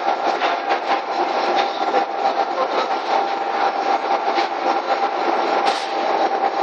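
Electric inclined belt-conveyor bag loader running: a steady whine from its motor and gearbox over a continuous rattle of belt and rollers, with many small irregular ticks.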